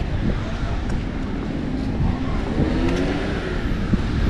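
A road vehicle's engine accelerating, over steady street noise.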